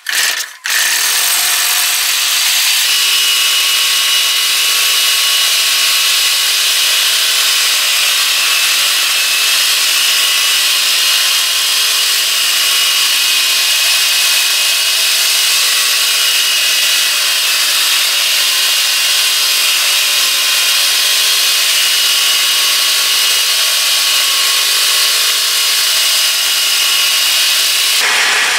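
Small four-stroke brush-cutter engine catching about a second in and running at high speed, spinning the blades of a homemade vegetable cutter as greens are fed through; it eases off near the end.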